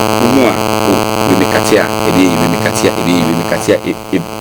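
Loud, steady electrical hum and buzz on the audio line, with a voice talking faintly underneath it.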